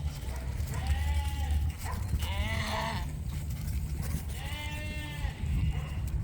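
Newly weaned lambs bleating, three separate calls about two seconds apart, from lambs crowding a closed gate and wanting to go back inside.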